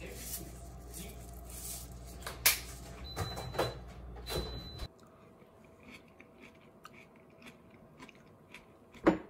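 Sesame seeds being sprinkled onto a plate of food: a few soft scattering rustles over a low hum. After an abrupt drop in level, metal chopsticks click faintly against the plate, with one sharper click near the end.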